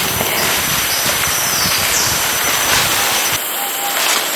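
Forest ambience: a steady rushing noise with a low rumble under it and a thin high tone, both of which drop away about three and a half seconds in.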